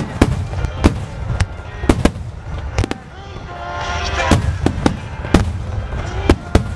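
Aerial firework shells bursting in quick, uneven succession: a dozen or so sharp bangs over a continuous low booming rumble. Recorded on a Ricoh GR compact camera's built-in microphone, which copes poorly with the loud bangs.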